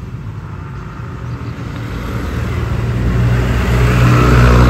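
A motor vehicle engine running close by with a steady low hum, growing louder through the second half as it comes nearer.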